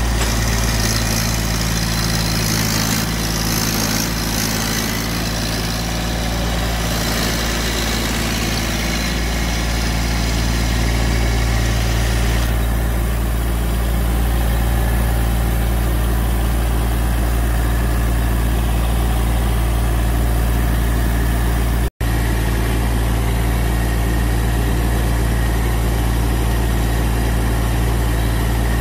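Compact tractor's engine running steadily, heard from the driver's seat as a loud, even low hum. An extra hiss rides over it for the first dozen seconds, and the sound drops out for a split second about 22 seconds in.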